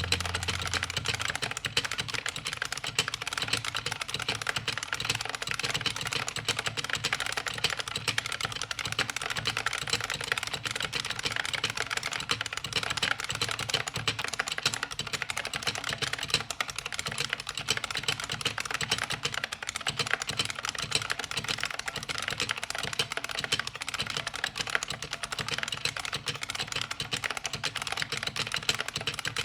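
IBM Model M buckling-spring keyboard being typed on quickly: a dense, unbroken stream of key clicks.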